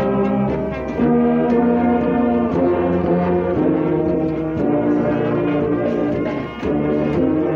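Brass band playing held chords, with tubas and euphoniums loud and close; the chords change about once a second, with a short dip near the end.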